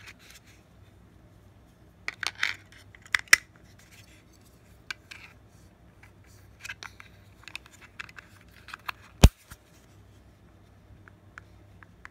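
Plastic TV-style remote being handled: AAA batteries seated in its compartment and the battery cover fitted, with scattered small plastic clicks and rustles and one sharp snap about nine seconds in as the cover clicks shut.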